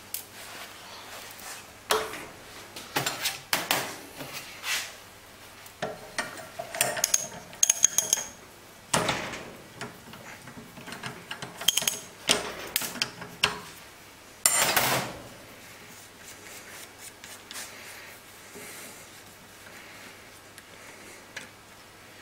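Small steel parts of a Bosch common rail injector clinking and clattering as they are handled and dropped into a stainless steel tray, with knocks against the metal clamping stand. A few of the knocks ring briefly. The clatter is busiest through the middle and dies down to faint handling near the end.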